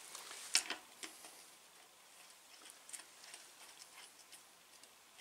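Small metallic clicks and ticks of a wrench working a pedal on a road bike's crank arm, one sharper click about half a second in, then faint and irregular.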